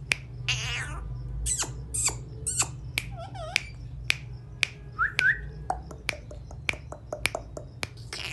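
Pet parrot making short harsh calls, a wavering cat-like meow and a quick rising chirp, mixed with many sharp clicks.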